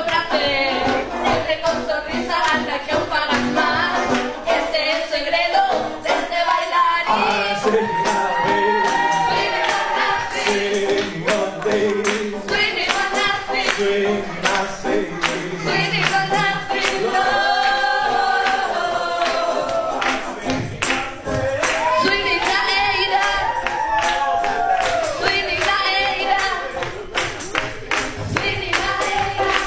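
Swing song sung by a group of voices, over a steady beat of sharp percussive clicks.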